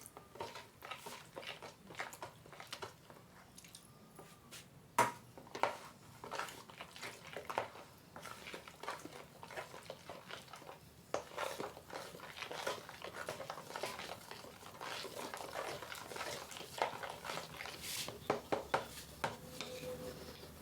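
Irregular clinks and knocks of kitchen utensils against dishes and a bowl, with a few louder knocks along the way, while cake ingredients are being handled.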